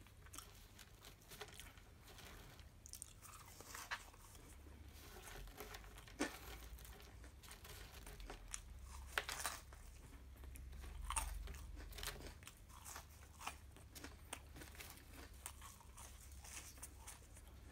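Faint close-miked chewing and crunching of fast food, fries mixed with onion pieces, in small irregular crunches throughout, over a steady low hum.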